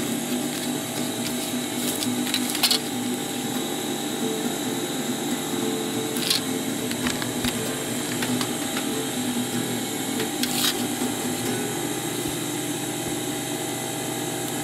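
A steady machine hum with a faint high whine throughout. Three or four light clicks from a clear plastic triangle ruler and pen being handled on card.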